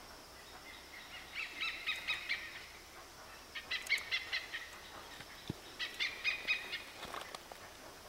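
Oriental pied hornbill calling: three bursts of rapid notes, each about a second long and about two seconds apart.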